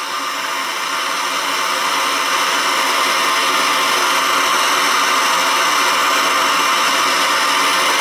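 Hose-fed gas torch burning with a steady hiss, heating a copper water pipe to melt the solder on an elbow joint so it can be pulled apart. It grows a little louder over the first second or two, then holds steady.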